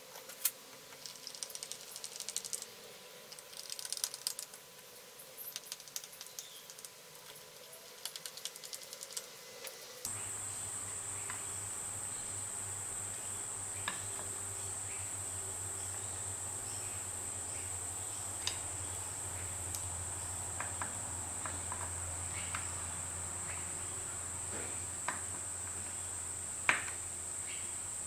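A screwdriver clicking against nickel-plated round-head wood screws as they are turned to line up their slots, a few sharp ticks at a time. About ten seconds in, a steady high-pitched drone and a low hum start up behind the clicks.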